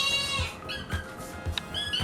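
Hungry foster kittens begging for food: one long high-pitched cry that ends about half a second in, a few short squeaks around the middle, and another cry starting near the end. Background music with a steady beat plays underneath.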